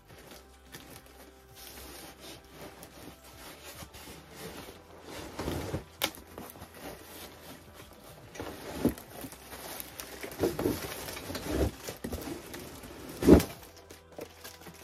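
Handling noise from flat-pack baby dresser parts and their packaging: rustling and crinkling with scattered clicks and knocks. A sharp knock near the end is the loudest.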